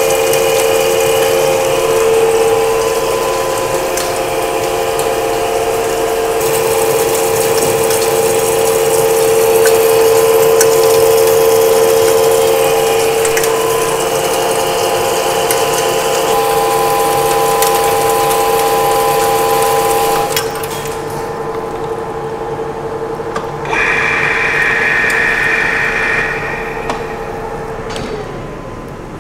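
Heavy metal lathe turning a bar of 1045 steel: the geared headstock runs with a steady whine under a dense hiss from the cut, with scattered ticks of chips. About two-thirds of the way through the cutting hiss stops while the machine keeps running. A higher whine follows for a few seconds, and the sound dies down near the end.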